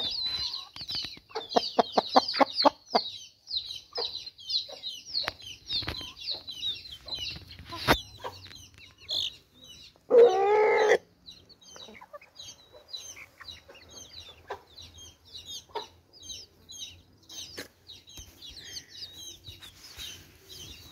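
A flock of chickens with chicks: constant high peeping throughout, a quick run of clucks in the first few seconds, scattered clucks after, and one loud short squawk about ten seconds in.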